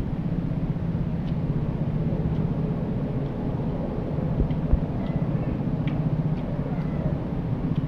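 A steady low motor-like hum, with faint scattered clicks over it.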